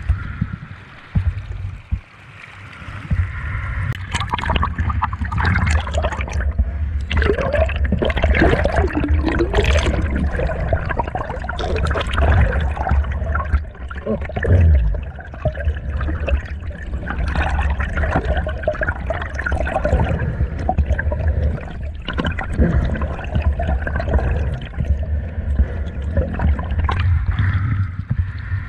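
Stream water rushing, heard from under the surface: a constant low rumble with irregular sloshing and splashing, busiest through the middle stretch.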